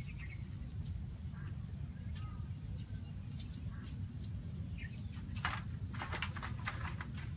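Outdoor ambience: a steady low rumble with faint bird chirps. About five and a half seconds in comes a short run of crackles and scrapes.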